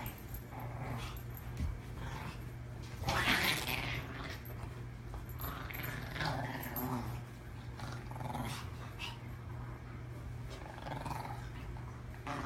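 Dogs growling in play during a tug-of-war game, in short bouts, the loudest about three seconds in.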